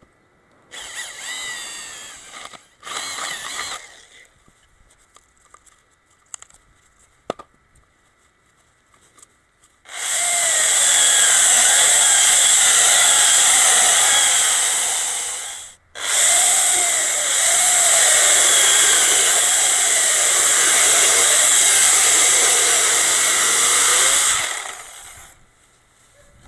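Electric drill boring into a log with a spade bit. Two short trigger bursts in the first few seconds, then two long runs of several seconds each with a brief stop between them, the motor's pitch wavering as it bites into the wood.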